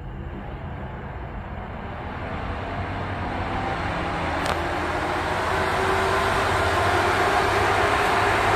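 Suncell X312 Silent Turbo laptop cooling pad's three fans running, a rushing whir of air that grows steadily louder as the fan speed is turned up. A faint tick about halfway through.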